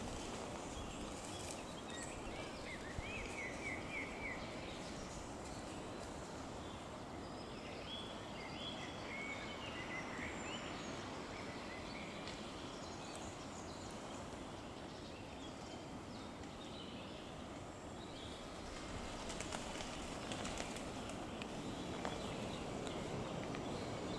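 Small birds calling in short runs of quick rising chirps, a few seconds in and again around the middle, over a steady rushing background noise.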